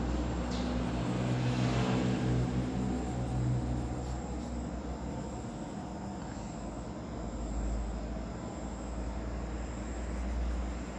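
A motor vehicle's engine passing and fading away over the first few seconds, leaving a steady low rumble.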